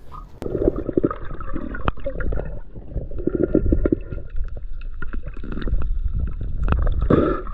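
Muffled underwater gurgling and bubbling, with irregular small clicks and a low rumble, from sea water moving around a camera held underwater by a snorkeler.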